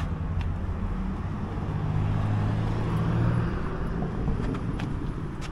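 A motor vehicle's engine hum, swelling around two to three seconds in and dropping away after about three and a half seconds, like a car passing close by.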